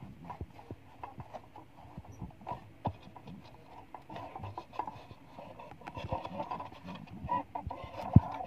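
Scattered light clicks and knocks of an old plastic emergency lamp and its chrome reflector being handled and turned over, with one sharper knock near the end.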